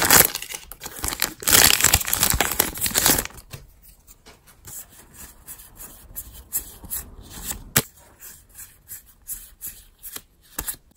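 Foil booster-pack wrapper torn open and crinkled for about the first three seconds. After that come soft scattered clicks and flicks as trading cards are slid one by one through the hands.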